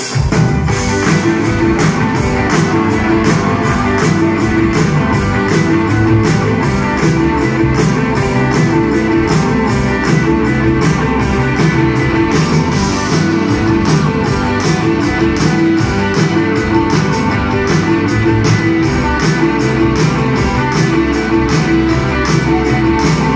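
Live rock band playing electric guitars and drums with a steady beat.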